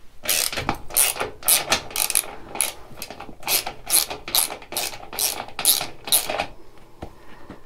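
Hand ratchet with a 12 mm socket clicking through quick back-and-forth strokes, about three a second, as it loosens a seat bolt; the strokes stop near the end.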